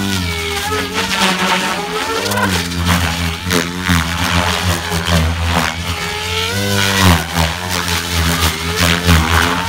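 Electric RC helicopter (Goblin Kraken with an Xnova brushless motor) flying hard 3D stunts: a high motor and rotor whine with rushing blade noise, its pitch dipping and recovering twice as the rotor is loaded by the manoeuvres.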